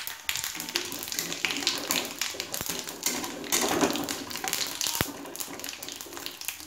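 Cumin seeds crackling and spluttering in a little hot oil in a steel kadai as they are tempered, the crackle busiest a little past the middle. A metal spatula stirs them, with two sharper knocks against the pan.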